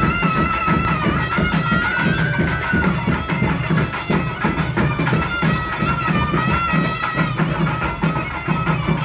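Traditional South Indian temple festival music: a wavering, piping melody from a wind instrument over a steady beat of barrel drums, played for a trance dance.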